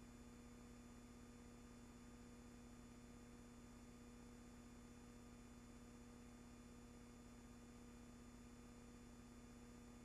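Near silence: a faint steady hum over light hiss, with no other sound.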